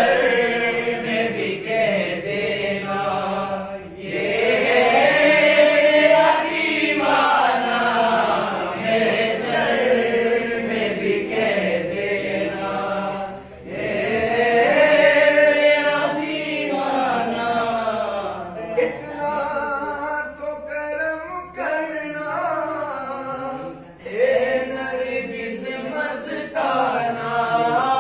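Group of men chanting together in Sufi devotional style, in long melodic phrases with short breaks every several seconds.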